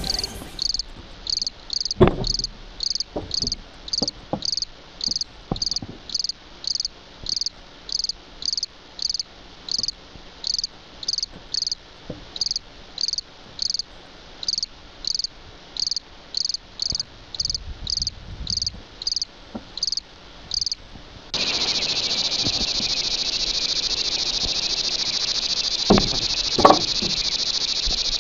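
Insects: a cricket chirping in short high pulses about twice a second, then, after an abrupt change about two-thirds through, a steady high continuous insect buzz. A few sharp knocks stand out, once near the start and twice near the end.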